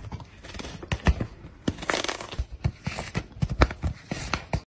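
A cat rubbing and mouthing the corner of a notebook: irregular scratchy rasps and crisp clicks of its mouth and cheek on the cover's edge.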